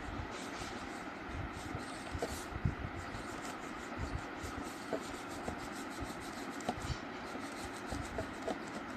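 Colouring strokes scratching back and forth on paper: a steady run of short rubbing strokes as an area of the drawing is filled in.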